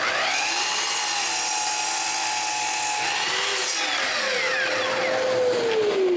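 Electric power tool working a piece of cedar: the motor spins up at once with a rising whine, runs steadily, then winds down with a falling whine over the last two seconds.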